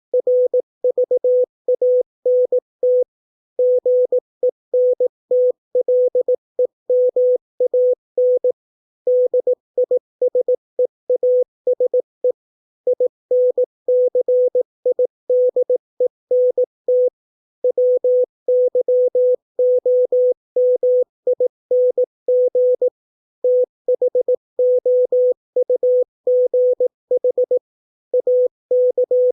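Morse code (CW) sent at 18 words per minute: a single steady tone keyed on and off in short dots and longer dashes, with brief pauses between words, spelling out English words for receiving practice.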